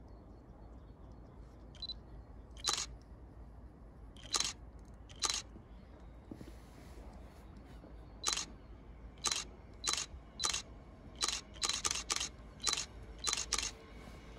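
A series of short, sharp clicks at irregular intervals, a few at first and then coming faster and bunched together in the second half, over faint steady background noise.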